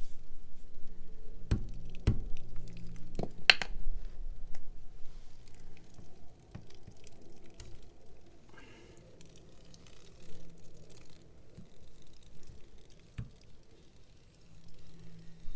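A wrench working the nut on top of a hose bib: a few sharp metal clicks and knocks in the first four seconds, then quieter scattered handling sounds as the nut is worked loose.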